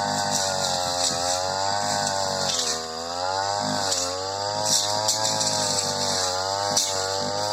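Supra SPR328 two-stroke brush cutter running at high revs while cutting tall, dense grass. Its engine pitch wavers up and down and sags briefly about three seconds in, with scattered sharp ticks over the engine note.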